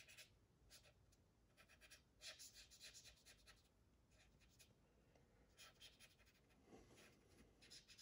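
Faint, scratchy rubbing of a dry cotton swab across the painted plastic of a 1/48 scale model aircraft, in several short spells of strokes, softening the edges of oil-paint staining.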